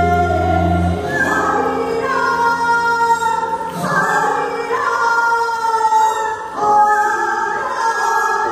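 A woman singing a Korean Gyeonggi minyo folk song into a microphone over amplified instrumental accompaniment. She holds long notes that step from pitch to pitch.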